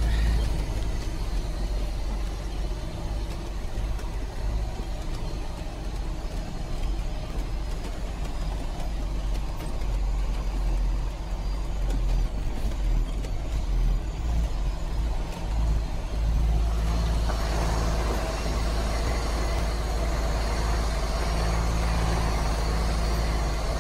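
Logging truck descending a steep, rough dirt road, heard from inside the cab: a steady low rumble of engine and road. The sound gets fuller and rougher about 17 seconds in.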